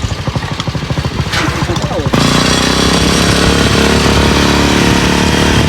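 Motorcycle engine of a homemade vehicle running. For the first two seconds it runs with rapid, even firing pulses, then it switches abruptly to a steady, stronger engine note.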